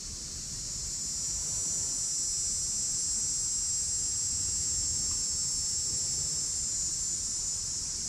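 A steady, high-pitched hiss that swells about a second in and eases off near the end, over an uneven low rumble.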